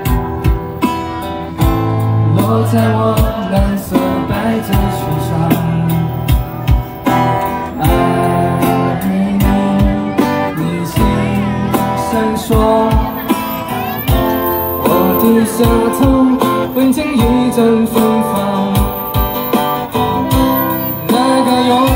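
Live band music from street buskers: an electric guitar playing melody lines over bass and a steady beat.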